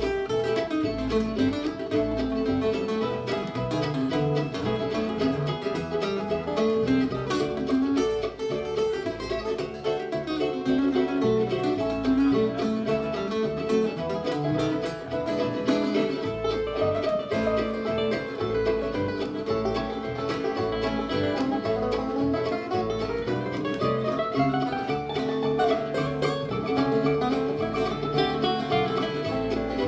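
Live bluegrass band playing an instrumental break between verses of a song, with banjo and guitar picking over a steady bass.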